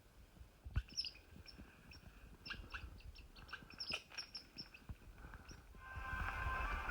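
A small bird singing a quick series of short, high chirps, with soft low thumps underneath. Near the end a louder rushing noise rises and covers it.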